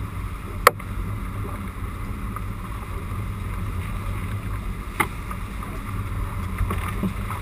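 Motorboat under way: a steady low engine drone mixed with wind and water noise. Two sharp knocks come through it, one just under a second in and one about five seconds in.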